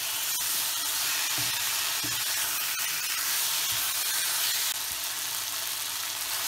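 Marinated chicken pieces sizzling in hot oil and onion masala in a nonstick wok as they are stirred with a wooden spatula: a steady frying hiss.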